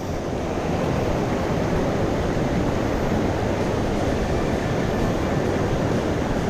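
Swollen mountain stream rushing steadily, a constant wash of water noise.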